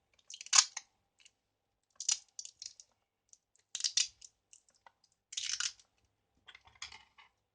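Handling noise from working the finished cable and its tape wrapping: about five short bursts of crackly clicking, roughly one every second and a half.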